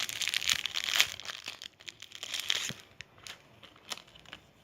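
Crinkling and rustling of the packet as a Joshanda herbal dip bag is taken out, dense for about the first two and a half seconds, then a few scattered clicks and rustles.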